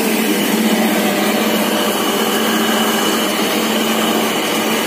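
Mini dal mill machinery running: belt-driven machine and blower giving a loud, steady mechanical whir.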